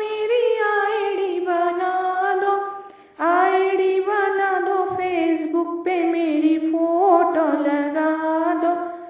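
A woman singing a Hindi devotional bhajan to Shiva, one voice carrying long held, bending melodic lines, with a brief break for breath about three seconds in.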